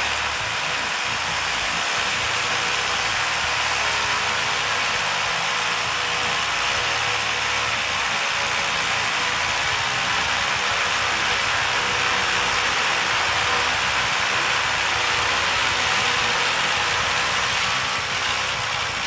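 Rotary hammer drills hammer-drilling up into a concrete beam: a loud, steady hammering noise that starts abruptly and stops just before the end.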